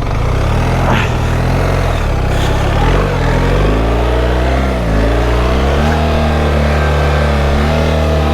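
BMW R 1300 GS Adventure's boxer-twin engine pulling away under throttle. The engine note dips twice, about three and five seconds in, then holds steady.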